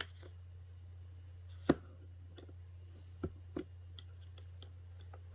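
A few sharp plastic clicks and taps, the loudest about a second and a half in, as a tablet's back cover is pried at around its clips. A steady low hum runs underneath.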